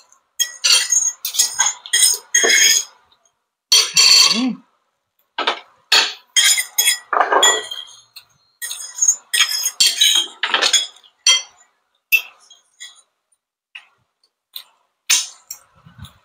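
Metal spoon and fork clinking and scraping against an aluminium baking pan and a plate as cheesy maja blanca is scooped out, in many short, irregular ringing strikes.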